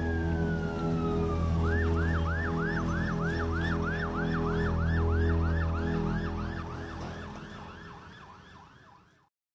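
Emergency vehicle siren switching from a slow wail to a fast yelp, about three sweeps a second, over a low steady drone. It fades and cuts off near the end.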